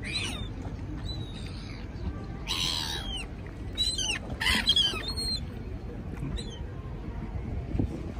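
Black-headed gulls calling: short, harsh, arching cries come one after another, the loudest about two and a half to three seconds in, over a steady low background rumble.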